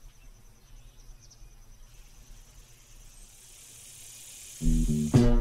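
Faint outdoor ambience with a steady insect-like hiss, then about four and a half seconds in, loud upbeat swing-style music starts abruptly.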